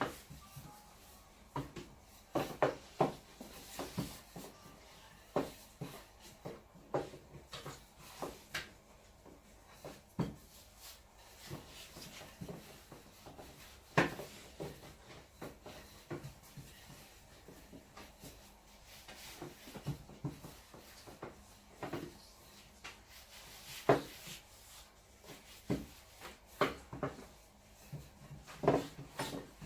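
Hand-rolling fresh pasta dough with a rolling pin on a work board: irregular knocks and rubbing as the pin is rolled, set down and the sheet is flipped and floured, with an occasional louder knock.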